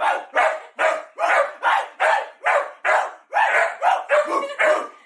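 A dog barking in a fast, unbroken run of short, loud barks, about two and a half a second.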